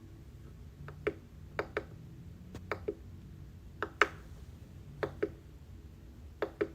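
Keys of an EPOMAKER x Aula F75 gasket-mounted mechanical keyboard pressed slowly one at a time. There are about six keystrokes, each a short click in a close pair, roughly one a second.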